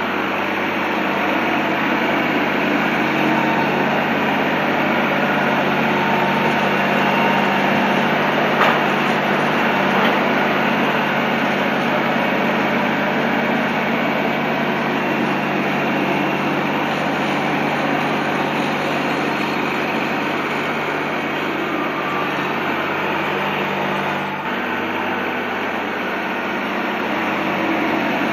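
Tractor engine running steadily, with two light knocks about nine and ten seconds in.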